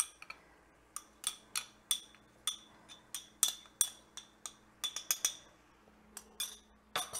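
A small glass prep bowl being tapped to knock the last of a dry spice mix into a pan. It gives sharp, ringing glass clinks at uneven spacing, about three a second.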